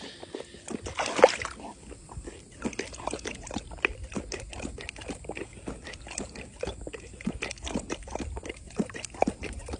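Pool water sloshing and splashing close around a swimming jaguar's muzzle at the surface: a steady run of small irregular splashes and wet clicks, with one louder splash about a second in.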